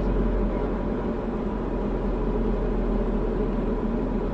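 Diamond DA40's engine and propeller heard from inside the cockpit, a steady drone on final approach to the runway.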